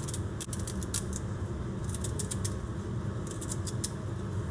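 Kitchen knife cutting celery over a plastic tub: three quick runs of short crisp clicks, about a second apart, over a steady low hum.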